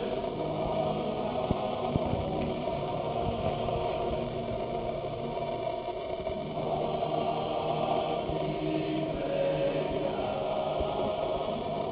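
Music with long held notes that change every few seconds, heard across a large, crowded hall.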